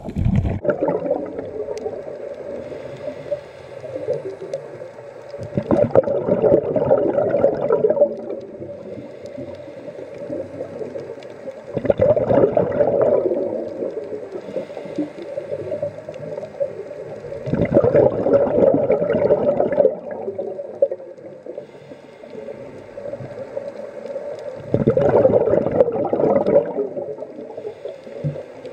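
A scuba diver breathing through a regulator, heard underwater. There are four loud bursts of exhaled bubbles, each about two seconds long and about six seconds apart, with a quieter hiss between them.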